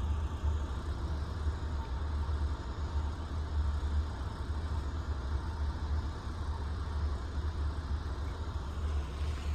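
Steady low rumble of outdoor background noise with no distinct event, fluctuating slightly in level.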